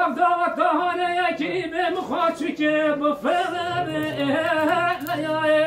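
A man singing unaccompanied into a microphone in the Kurdish dengbêj style, in long held notes that waver and bend, phrase after phrase without a break.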